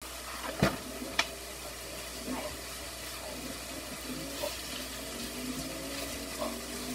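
Ground beef sizzling in a skillet on an electric stove as it is stirred with a spatula, a steady hiss. Two sharp knocks come about half a second and a second in.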